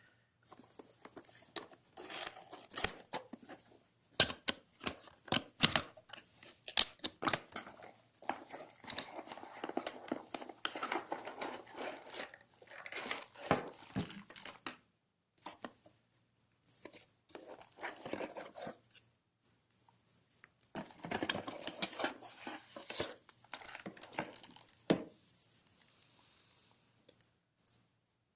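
A cardboard box being opened and its packaging handled: irregular tearing, crinkling and rustling with sharp clicks and knocks, in several stretches with short pauses between them.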